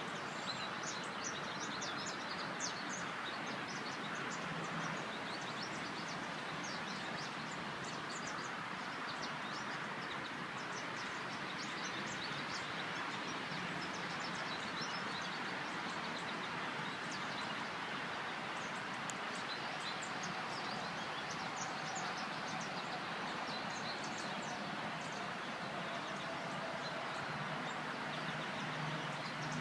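A chorus of small birds chirping and twittering in quick, high, overlapping notes over a steady background rush of outdoor noise. A faint, slowly falling drone passes in the second half.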